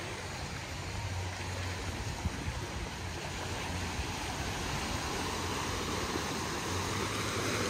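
Steady rushing wash of surf on a sandy beach, with a low steady hum underneath.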